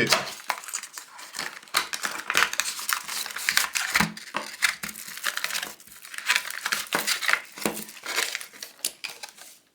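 A retail product box being opened by hand, its packaging crinkling and rustling in quick, irregular crackles with small scrapes and clicks.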